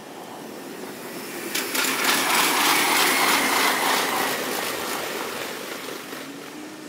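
A train passing close by, heard in audio sped up five times: a rush with rapid wheel clicking that swells about a second and a half in, then fades away over the next few seconds.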